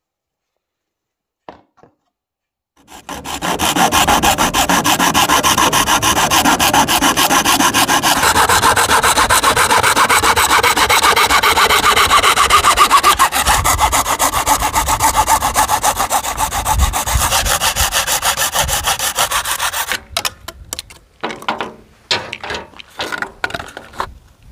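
Hacksaw cutting through a Honda Dio's plastic engine cooling shroud, with steady rapid back-and-forth strokes that start about three seconds in and stop about twenty seconds in. A few separate knocks and rustles follow.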